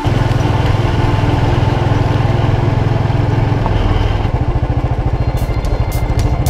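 Royal Enfield Classic 350's single-cylinder engine running under way with a steady low thump, the note easing a little about four seconds in. Near the end, music with a sharp beat comes in over it.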